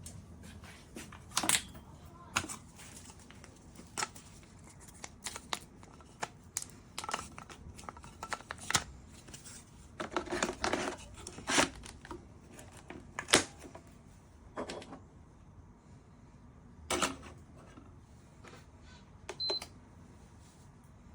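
Scattered clicks and knocks of plastic parts of a small pod coffee machine being handled, with a short high beep near the end.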